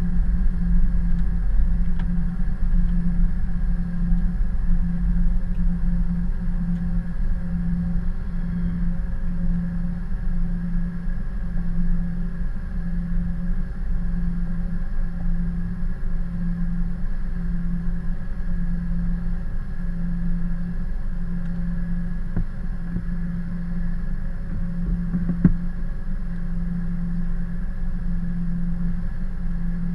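Boeing 717's Rolls-Royce BR715 jet engines running steadily at low power, a rumble with a low throb that beats about once a second. A single sharp click about 25 seconds in.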